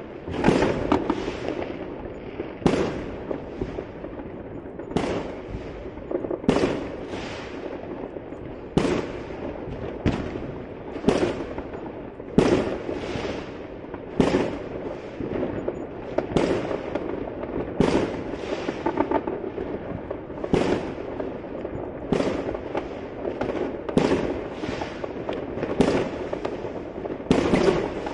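Fireworks going off in a continuous barrage: a sharp bang every second or two, each followed by a brief crackle, over a constant background of distant bangs and crackling.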